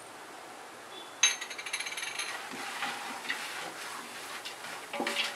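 Wooden spatula stirring roasted peanuts and chana dal in a large steel pot: a rapid rattling scrape that starts suddenly about a second in, with the steel pot ringing briefly, then looser scraping and clicking of the nuts against the metal.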